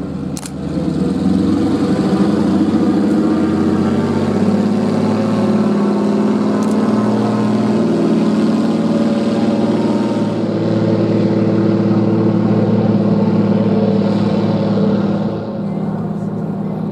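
De Havilland Beaver floatplane's radial engine and propeller at full power on its takeoff run across the water. The sound is loud and steady, coming up about a second in and falling off near the end as the plane pulls away.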